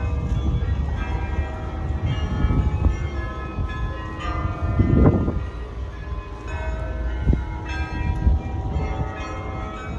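Bells of the Ghent Belfry's carillon ringing, many bells struck one after another, each tone dying away. Under them is a steady low rumble, with a louder noisy surge about halfway through.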